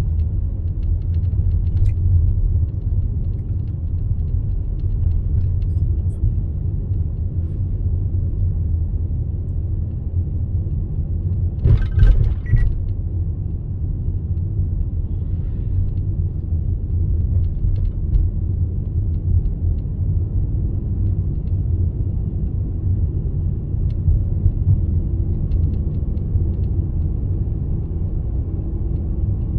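Steady low rumble of a car's road and engine noise heard from inside the moving car's cabin, with a brief clatter about twelve seconds in.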